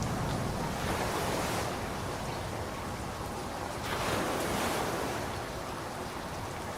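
Steady heavy rain, a wash of noise that swells twice, about a second in and again about four seconds in.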